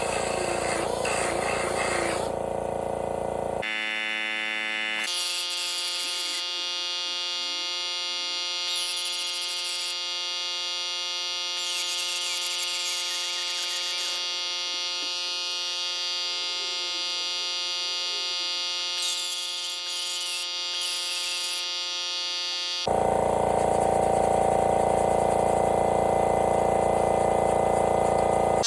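Background electronic music of sustained synthesizer tones, with a sudden change to a louder, fuller section about 23 seconds in.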